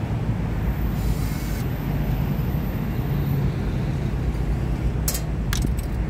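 Steady low engine rumble, with a few sharp clicks close together near the end.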